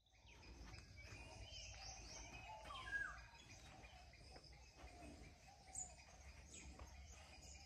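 Faint birds chirping and calling over a low, steady background rumble, with one louder chirp about three seconds in.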